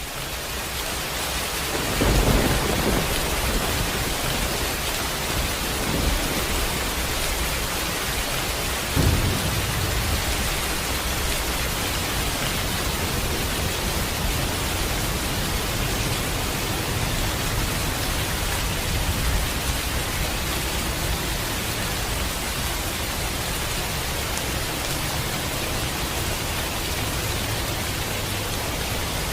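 Steady rain with thunder. The rain swells in over the first couple of seconds, then thunder strikes about two seconds in, again around six seconds and loudest near nine seconds, with low rumbling under the rain after that.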